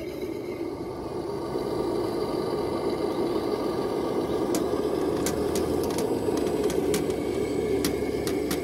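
Radio-controlled scale truck's drive running as the tractor unit pulls away with its loaded low-bed trailer. Steady, getting louder over the first couple of seconds, with a few sharp clicks.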